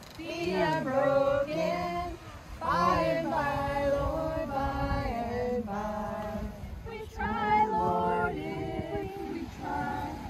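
A group of women and young children singing a song together in unison, with held notes.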